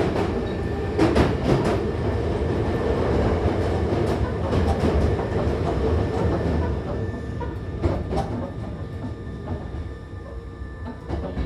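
Hankyu Kyoto Line electric commuter train heard from inside the car while running: a steady rumble of wheels on the track, with sharp clicks as the wheels pass over rail joints. It quietens somewhat near the end.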